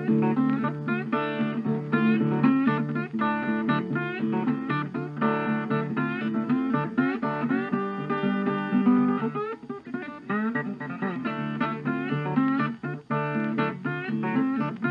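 Background music played on acoustic guitar, plucked and strummed.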